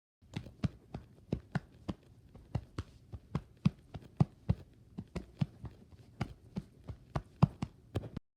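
A quick, uneven run of short taps, each with a low thud under it, about three to four a second. They start and stop abruptly, like an edited-in sound effect of steps or tapping on a hard surface.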